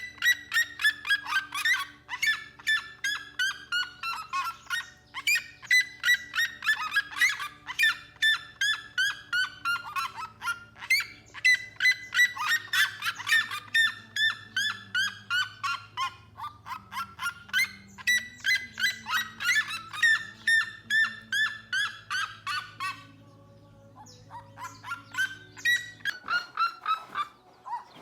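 A bird calling loudly in rapid runs of harsh honking notes, each run falling in pitch over about two seconds and repeated again and again, then breaking off near the end, over a faint steady low drone.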